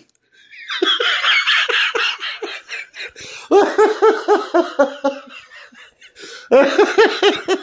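A woman laughing hard: a breathy stretch first, then two runs of rapid pitched 'ha-ha' bursts, about five a second.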